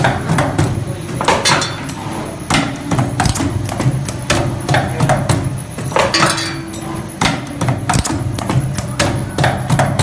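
M-shape strip clip forming machine running: a fast, rhythmic metallic clatter as its dies strike and fold metal strip, about two to three strokes a second, over a steady low machine hum.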